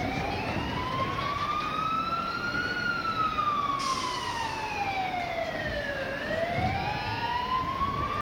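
Emergency vehicle siren sounding a slow wail: its pitch rises for about three seconds, falls for about three seconds, then rises again near the end.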